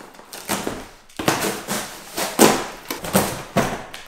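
Cardboard shipping box being cut and torn open by hand: packing tape and cardboard flaps ripping and scraping in a run of rough, irregular bursts.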